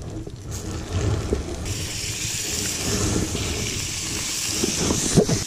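Raw rainbow trout fillets laid into a hot frying pan on a portable gas camp stove, starting to sizzle about two seconds in and sizzling steadily from then on. A sharp knock comes near the end.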